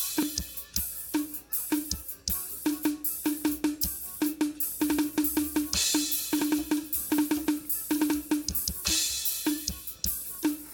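Drum kit being played in a steady, busy groove of quick drum strikes. Cymbal crashes come at the start, about six seconds in, and about nine seconds in.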